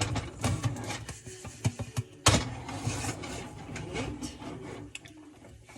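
Irregular knocks and clicks of handling around a stovetop pan, with one sharper knock a couple of seconds in.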